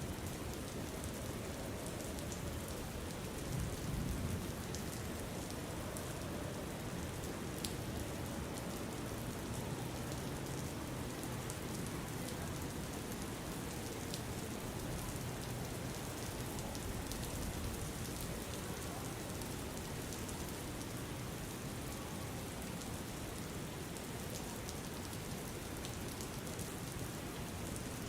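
Steady rain falling, with scattered drops ticking sharply through the hiss. A brief low rumble rises about four seconds in.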